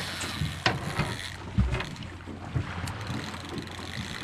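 Wind buffeting the microphone and water moving against a boat hull, with a few light knocks.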